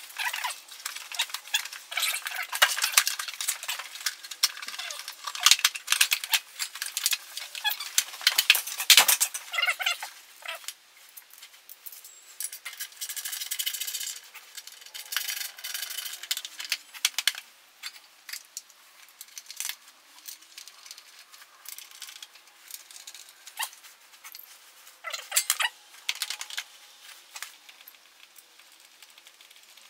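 Metal tools and engine parts clinking, tapping and knocking during hand work on an engine. The clatter is busiest in the first ten seconds, thins out after that, and picks up again briefly a few seconds before the end.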